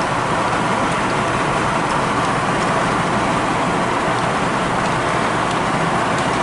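Steady road and wind noise of a truck driving at highway speed, an even rushing hiss heard from inside the cabin.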